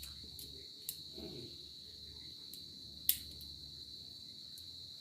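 Crickets chirring steadily in the background, with a few light clicks, the loudest about three seconds in.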